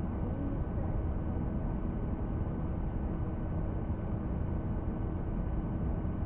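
Steady low rumble with a faint constant hum over it.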